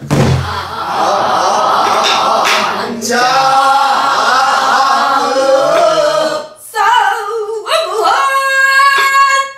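A woman singing pansori solo, marking the beat on a buk barrel drum with a wooden stick. A low drum stroke comes at the very start, then a long sung phrase, a short break a little past six seconds, and a second phrase.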